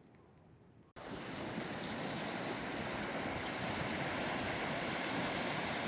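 Ocean waves washing on a beach: a steady rushing noise that starts suddenly about a second in, after faint room tone, with some wind on the microphone.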